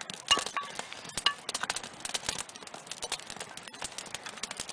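Campfire of small split dry wood crackling, with rapid irregular pops and snaps and one louder snap about a third of a second in.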